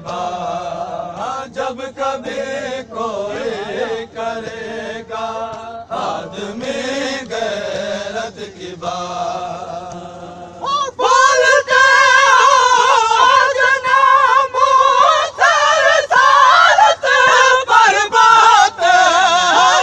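Men's voices chanting an Urdu noha, a mourning lament, in a crowd. About eleven seconds in, the singing suddenly gets much louder and higher, carried on in phrases with short breaks.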